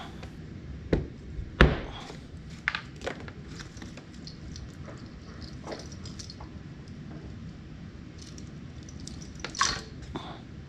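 Handling noise from unpacking a motor controller and its wiring from a foam-lined cardboard box: a few sharp knocks and clicks, the loudest about a second and a half in and another pair near the end, with soft rustling between.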